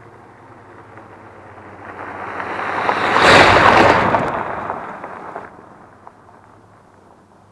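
A pickup truck driving past on gravel, its noise building to a peak about three and a half seconds in and then fading away.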